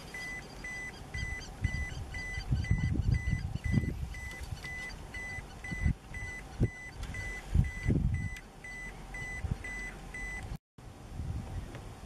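Electronic beeper sounding a short steady tone about twice a second, in the manner of a vehicle's reversing alarm, over irregular low rumbling. The beeping cuts off suddenly near the end.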